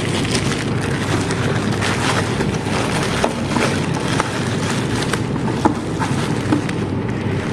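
Steady rustling with many small scattered clicks, the sound of the breast pump and its packaging being handled.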